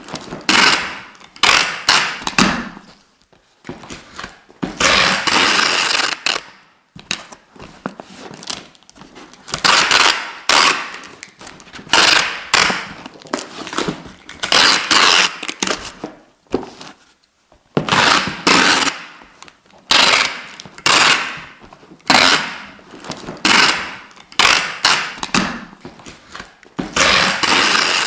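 Adhesive tape being pulled off the roll again and again in short, loud pulls with brief pauses between them, about twenty in all, with one longer pull of about two seconds around five seconds in.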